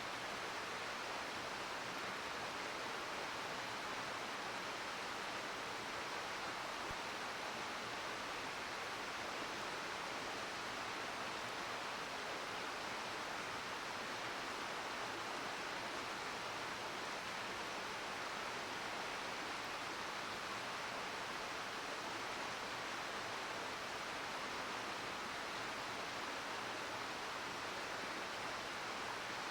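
Mountain river murmuring: a steady, even rush of flowing water.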